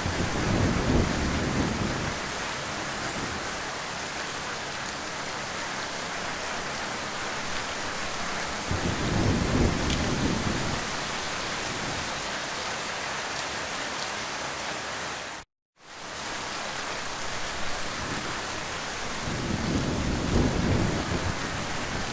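Heavy rain falling in a steady hiss, with low rumbles swelling up three times. The sound drops out completely for a fraction of a second about two-thirds of the way through.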